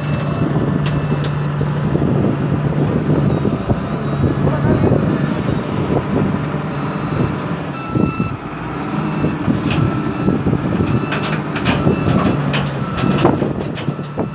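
Komatsu tracked excavator's diesel engine running steadily as it drives onto a steel lowboy trailer. A high beeping alarm sounds on and off, and sharp metallic clanks from the tracks come in a cluster in the second half.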